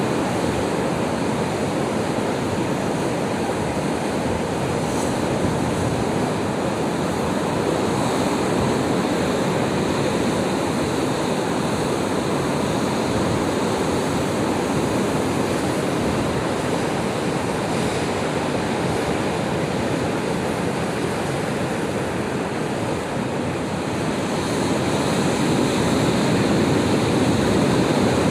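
Ocean surf: waves breaking and washing continuously on a shore, swelling a little louder near the end.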